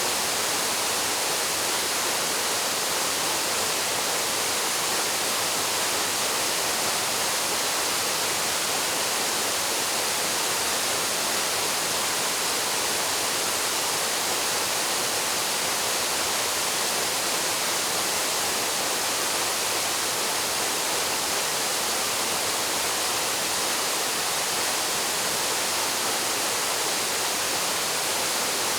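Waterfall pouring steadily into its plunge pool: an even, unbroken rush of falling water, heaviest in the upper-middle range.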